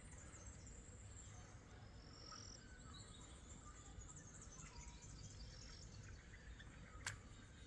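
Near silence: faint outdoor ambience with scattered short, high chirps, and a single sharp click about seven seconds in.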